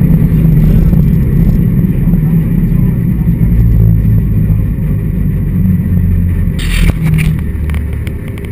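Skoda Felicia rally car's engine heard from inside the stripped cabin, running steadily at low revs as the car creeps forward, its sound easing off near the end. A brief hiss with a click cuts in about seven seconds in.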